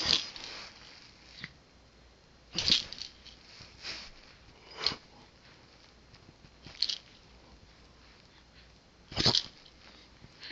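A small child making short breathy vocal sounds, about six of them one to two seconds apart.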